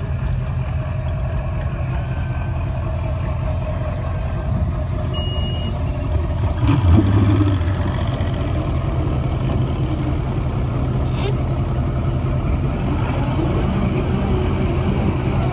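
A motor engine running steadily at low speed, swelling briefly about seven seconds in.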